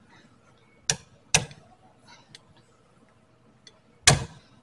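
Hammer blows on the steel front spindle of a VW Karmann Ghia, knocking the ball-joint connection apart: sharp metallic strikes with a short ring, two about a second in and two more near the end.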